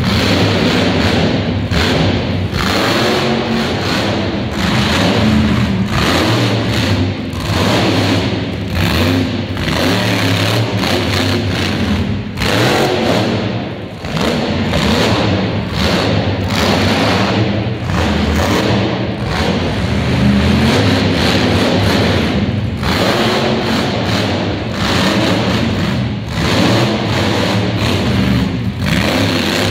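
Monster truck engine revving hard and rising and falling through a freestyle run, with loud music playing over the arena sound system.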